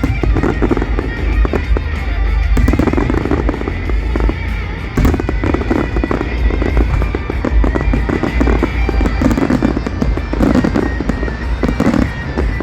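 Aerial fireworks exploding in rapid succession, a continuous low rumble of booms thick with sharp crackling, over music playing along with the show.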